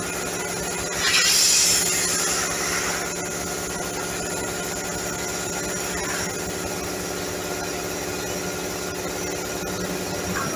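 Schulz CSV 20 Max belt-driven piston air compressor with its 5 hp three-phase electric motor running steadily, with a burst of hissing about a second in. It runs normally, then cuts off near the end as it is switched off at the pressure switch.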